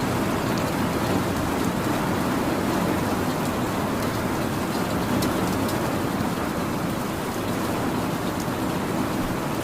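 Steady rain, an even continuous hiss with scattered sharper drop ticks through it.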